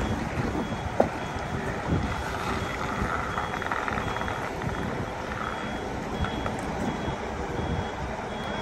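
Reversing alarm on a Kato SL-800Ri crane beeping evenly, about three beeps every two seconds, over the steady rumble of the crane's diesel engine as it backs into position. A single sharp knock sounds about a second in.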